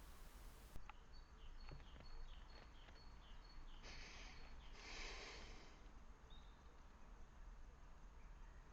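Near silence: faint outdoor ambience with a run of faint high chirps over the first few seconds and two soft brief rustles about halfway through.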